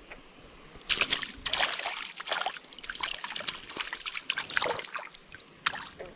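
Water sloshing and splashing in a landing net held in the stream while a brook trout is unhooked and let go, a run of irregular splashes starting about a second in.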